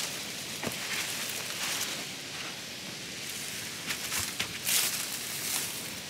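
Leafy shrubs rustling and footsteps in flip-flops on sandy ground, over a steady hiss, with a few louder crackling rustles near the end.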